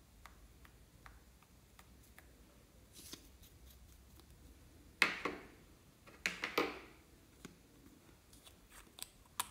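Hands handling small plastic and glass cosmetic bottles: light ticks and clicks, a sharp knock about halfway through, then two more clattering knocks a second later, and a couple of clicks near the end.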